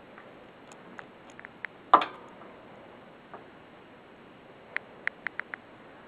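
Scattered sharp clicks and knocks over a steady low hiss. One loud knock with a short ring comes about two seconds in, and a quick run of five clicks comes near the end.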